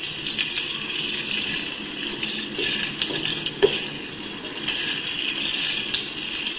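Chicken frying in ghee in a pan, a steady sizzle, with a few sharp taps and scrapes of a wooden spatula stirring it.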